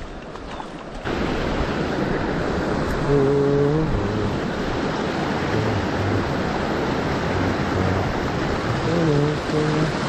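Creek water rushing over a shallow rock ledge in a riffle: a faint flow for the first second, then a steady rush of water from about a second in.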